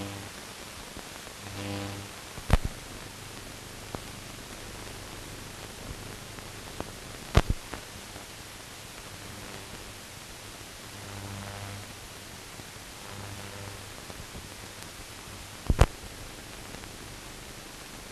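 Steady hiss of a silent film transfer, with no soundtrack, broken by three sharp pops. A faint hum swells up briefly now and then.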